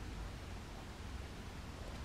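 Quiet room tone: a steady faint hiss with a low rumble underneath.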